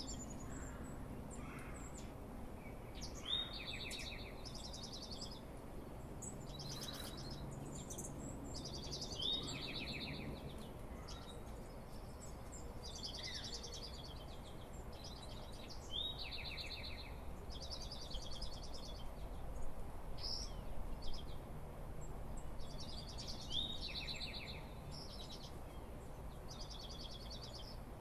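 Dawn chorus of several songbirds singing, one of them repeating the same short song, a clear slurred note running into a trill, about every six to seven seconds. Underneath is a faint, steady low background rumble.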